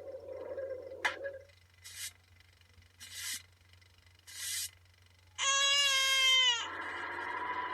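A run of cartoon sound effects. A wind whoosh fades out, a balloon pops about a second in, and three short brushy broom swishes follow. Then a baby cries one loud 'wah' that drops in pitch at the end, and a steady pitched sound starts near the end.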